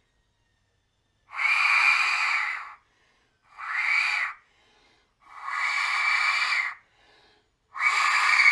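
Hand-welded stainless steel Aztec death whistle blown in four loud blasts, the second one short: a really loud, wind-like scream rather than a high-pitched shriek.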